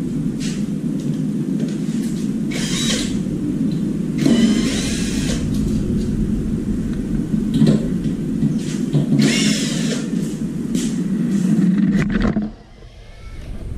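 A motor running steadily, with a few short bursts of hissing on top, cutting out about twelve seconds in.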